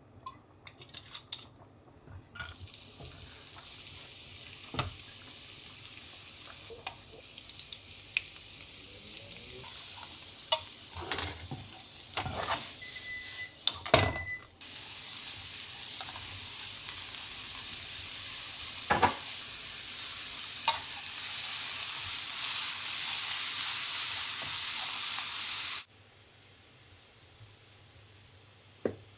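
Chopped onion and bacon frying in oil in a nonstick frying pan, sizzling, with scattered clicks and scrapes from stirring. About halfway through the sizzle grows louder as the chopped onion is tipped in. Near the end the sizzle cuts off, leaving a much quieter background.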